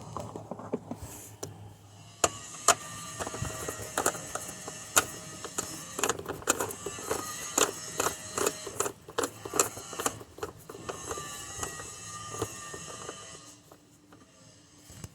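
Screws being tightened into a car's fuse box cover with a hand tool: a run of irregular metallic clicks and ticks, several a second, that dies away about 13 seconds in.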